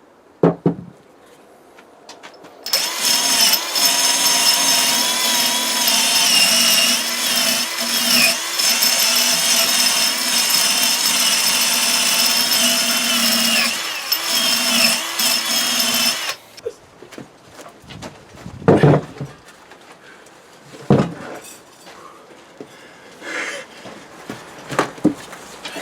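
Handheld power tool running steadily for about thirteen seconds, its pitch wavering slightly as it works, then stopping. A few separate knocks follow.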